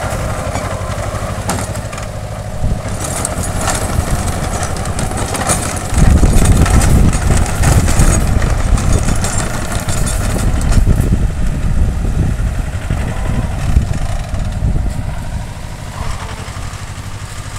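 Compact tractor's diesel engine running steadily under load while its rear Mahindra rotary tiller churns the soil. It grows louder and rumbles more heavily about six seconds in, then eases off toward the end.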